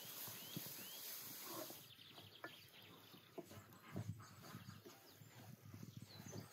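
Faint scraping and knocking of a spoon stirring a thick, crumbly mixture in a steel pan over a fire. A few small bird chirps come in the first couple of seconds.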